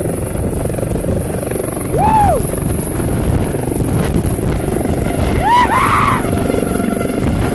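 Medical helicopter lifting off and departing close by, its rotor and turbine noise steady and loud. Two short rising-and-falling whoops cut through it, about two seconds in and again near five and a half seconds.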